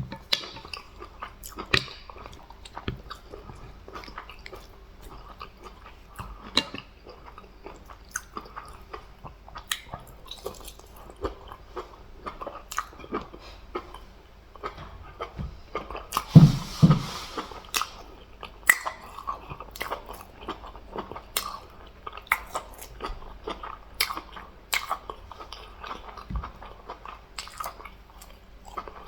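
Close-miked chewing and eating: irregular wet mouth smacks and clicks, with a louder noisy burst about halfway through.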